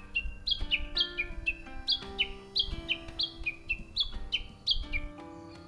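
A songbird singing a repeated two-note phrase, a high note dropping to a lower one, about two phrases a second, stopping near the end. Soft background music plays underneath.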